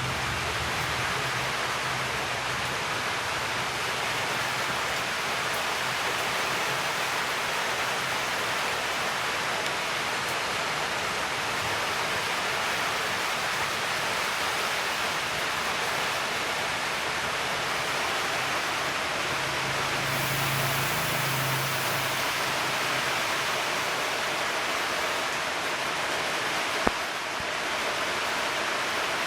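Oxyhydrogen (hydrogen gas) welding machine running with its torch lit: a steady hiss, with a low hum that comes and goes and one sharp click near the end.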